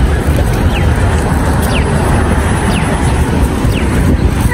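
Steady, loud rumble of city street traffic, with a pedestrian crossing signal's electronic chirp falling in pitch and repeating about once a second.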